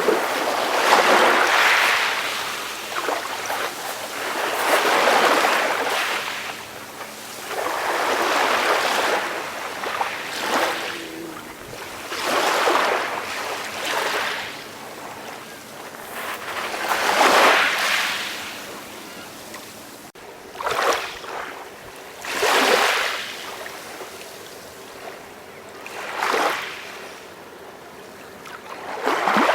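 Calm sea waves breaking gently, each wave a hiss that swells and fades every two to four seconds. The swells get shorter and sharper in the second half.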